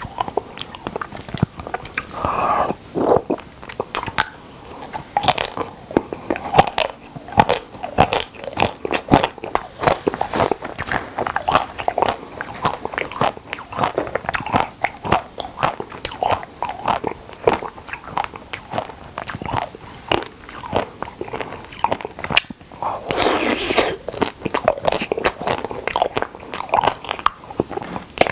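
Close-miked biting and chewing of a milk caramel ice cream bar: many sharp crunches as the coating breaks, with wet chewing between them. About 23 seconds in there is a longer, breathy noise of about a second.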